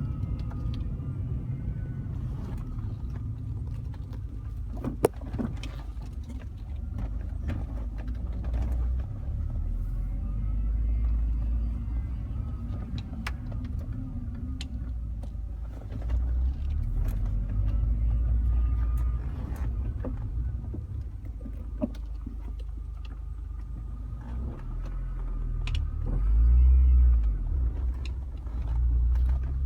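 2005 Mini Cooper S running while driving: low engine and road rumble that swells several times as the car accelerates, with scattered clicks and rattles. A faint whining sound rises and falls with the loudest surge near the end.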